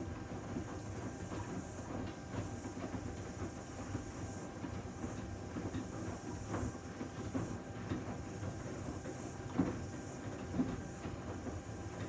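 Panasonic VX6 front-loading washing machine in the main wash of its Mud programme, its drum tumbling wet laundry. A steady churning hiss runs throughout, with scattered light knocks, the clearest near the end.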